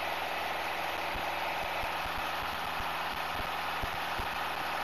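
Steady drone of a light single-engine piston airplane's engine and propeller at climb power, heard inside the cabin as an even, unbroken noise.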